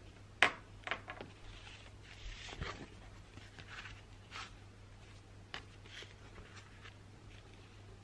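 Paper being handled and slid over a wooden desk: a few sharp taps and clicks in the first second, soft rustling a couple of seconds in, and scattered light taps after that. A faint steady low hum runs underneath.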